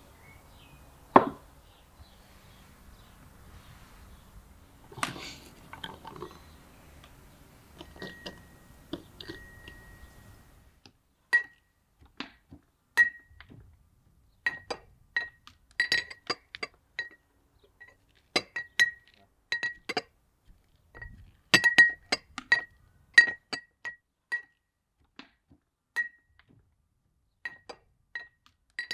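Brass pestle pounding in a brass mortar: a run of sharp, irregular metallic clinks, each ringing briefly at one high pitch. A single knock about a second in and some quieter handling come before the pounding starts.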